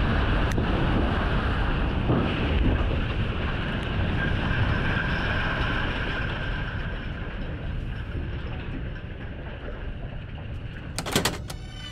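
Low, rumbling roar of concrete silos and a steel conveyor collapsing after explosive demolition, slowly fading. A few sharp cracks come in the first couple of seconds, and one louder crack near the end.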